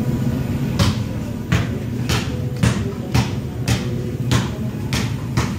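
A steady series of sharp knocks, about two a second, over a low steady hum of background noise.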